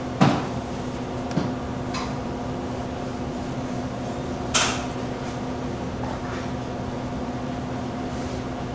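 A plastic ladle knocking and scraping against a plastic tub and steel tray while thick chili sauce is scooped out, with a loud knock just after the start, a few softer ones, and a sharp click about halfway through, over a steady background hum.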